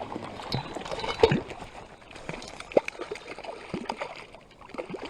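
Water sloshing and splashing around a float tube as a hooked tiger trout is played in, with sharper splashes about a second in and near three seconds.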